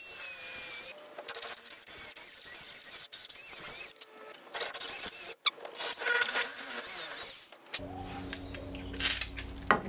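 Cordless drill boring a twist bit through a mahogany framing beam: a steady whir in the first second, then irregular whirring and scraping as the bit works through and is backed out of the hole. A steady low hum takes over near the end.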